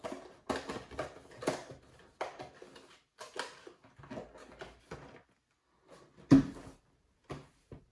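Crinkling and rustling of the plastic inner bag in a family-size Cap'n Crunch's Christmas Crunch cereal box as a hand digs into it, in a run of quick crackles. A little over six seconds in comes one loud thump as the box is set down on the table, followed by a few lighter knocks.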